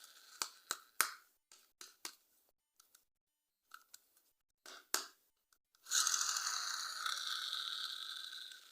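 Toy packaging being opened by hand: a scatter of sharp plastic crinkles and clicks, then a long tearing sound, like tape or plastic film being peeled, that starts about six seconds in and fades over nearly three seconds.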